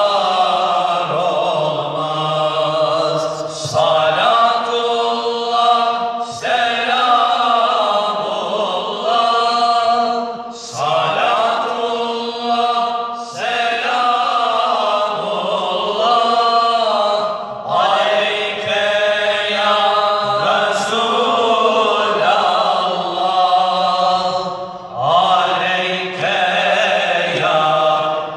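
A group of men singing a Turkish ilahi (Sufi hymn) with no instruments, a lead voice on a microphone and the others singing along. It comes in phrases a few seconds long, with short breaks between them.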